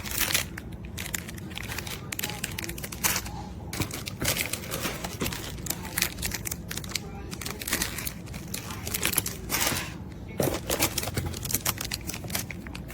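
Packaging crinkling and rustling in irregular bursts as it is handled and opened.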